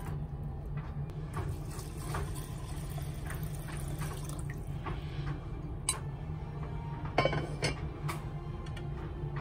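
Water running in a kitchen during cooking, with scattered light clicks of utensils and a brief sharper clink about seven seconds in.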